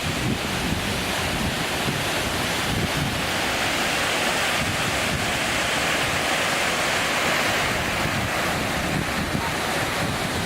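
Waterfall: a steady rush of falling water, with wind buffeting the microphone.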